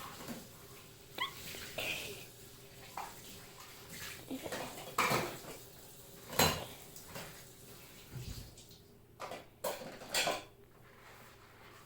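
Scattered soft knocks, taps and rustles of Play-Doh and small plastic pieces being handled on a table, with a few louder knocks partway through and near the end.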